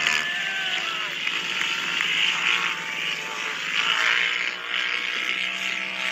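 Off-road vehicle engines running on the sand, their pitch slowly sinking near the start and picking up again in the second half, over a steady hiss.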